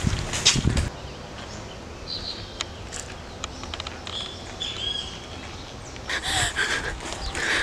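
Running footsteps thud on a path for about the first second, then birds chirp among a few sharp clicks, and loud rough breathing starts near the end.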